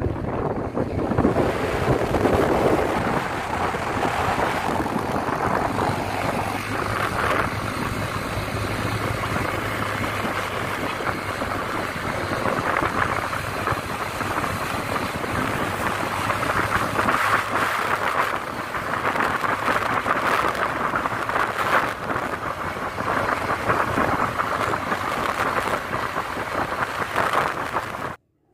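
Wind rushing over the microphone and road noise from a motorcycle on the move, with its engine running under it. The sound cuts off suddenly just before the end.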